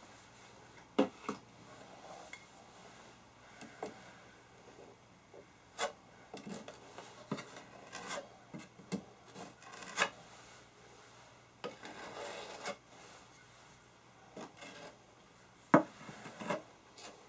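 Scattered small clicks and taps and short scraping rubs as plastic wood filler is pressed into and smoothed over a chipped spot in wood, with a longer rub about twelve seconds in and one sharp knock near the end.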